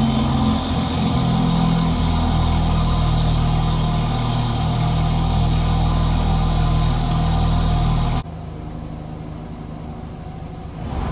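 2014 BMW 428i's turbocharged four-cylinder engine idling just after start-up, running with the catalytic converter deleted and the stock exhaust. About eight seconds in the sound suddenly becomes quieter and duller.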